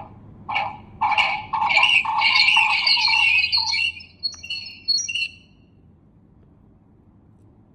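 Samsung Galaxy phone ringtone for an incoming Google Duo group call, playing as a quick run of short, bright high notes that starts about half a second in and stops about five seconds in.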